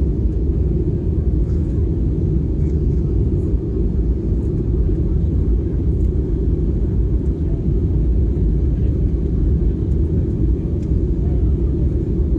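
Steady low rumble of an Airbus A320 heard inside the passenger cabin: engine and airflow noise, even and unchanging.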